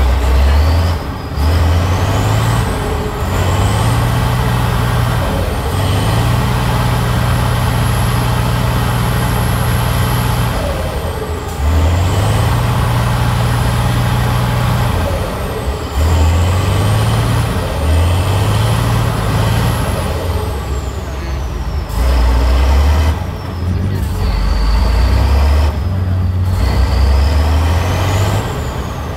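Tatra 8x8 trial truck's diesel engine revved hard again and again in bursts of a few seconds, dropping back between them, with a high whine rising and falling with the revs. The truck is straining to climb a steep muddy slope and failing to get up it.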